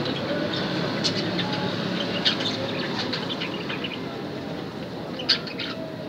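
Budgerigars giving short, scattered chirps, with a sharp click about five seconds in, over a steady low rumble in the background.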